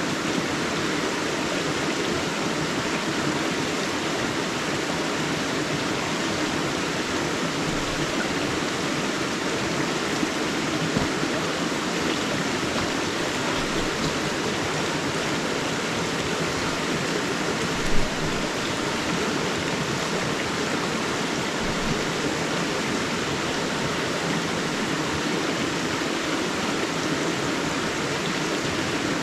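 River water rushing steadily over rocks in a forest stream, with a brief louder splash about 18 seconds in.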